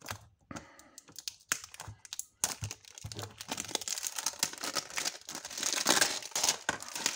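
Clear plastic shrink-wrap being torn and peeled off a Blu-ray case: crinkling and crackling, with sharp clicks at first and a denser, louder crackle in the second half.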